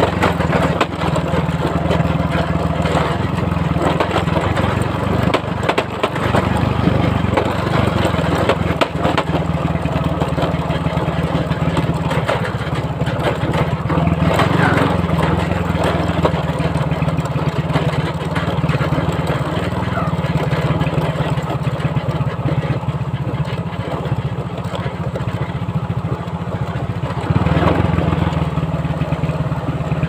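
Small motorbike engine running at low speed on a rough dirt track, with occasional knocks from the bike jolting over the ground, getting louder near the end.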